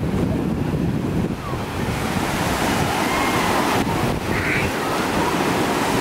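Ocean surf breaking, and shallow water washing up over the sand. About two seconds in, the hiss of the wash grows brighter and fuller as the water rushes in close by.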